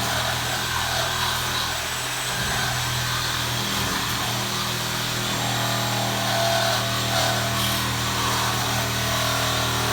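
Electric power saw running steadily with a low motor hum, cutting through steel.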